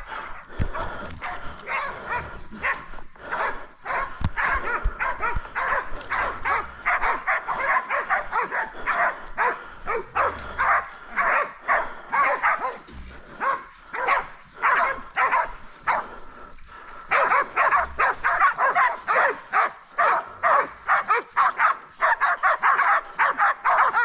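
Pig dogs barking rapidly and without let-up, several barks a second, easing briefly about two-thirds through: bay barking as the dogs hold a boar at bay.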